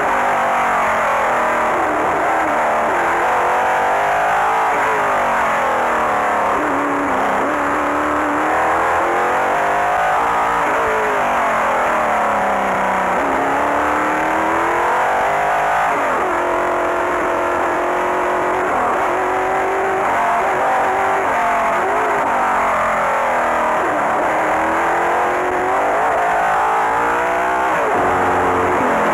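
Formula 5000 racing car's V8 engine heard on board at speed, its revs climbing and then falling away again and again through gear changes and corners of a lap.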